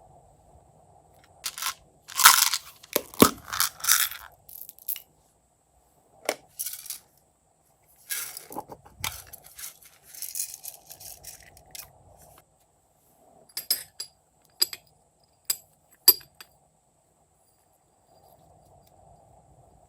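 Slime being mixed and worked by hand: irregular bursts of sticky crackling and popping, then a run of short sharp clicks about two thirds of the way through.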